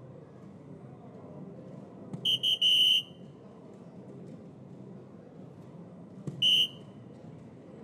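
Two soft-tip darts strike an electronic dartboard, and the machine beeps after each hit. About two seconds in, a dart click is followed by three quick beeps, the last held longer, as the board scores a triple 20. About four seconds later, another click is followed by a single beep as it scores a single 20.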